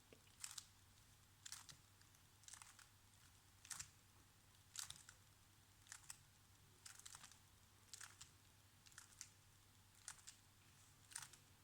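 Faint clicks of a 3x3 Rubik's cube's layers being turned through a solving algorithm, about one turn a second, some coming in quick pairs.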